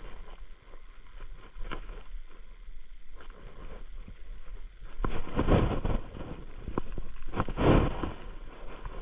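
Rustling and scraping of a handheld camera being moved and rubbed while someone walks through grass, with light footfall clicks. There are two louder rubbing scrapes, about five seconds in and again near the end.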